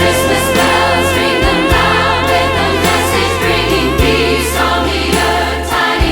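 A large choir singing with orchestral accompaniment, the voices held with vibrato over a sustained bass line.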